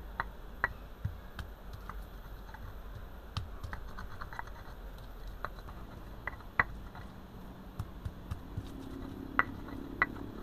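Irregular light clicks and taps, a few sharper than the rest, over a faint low hum.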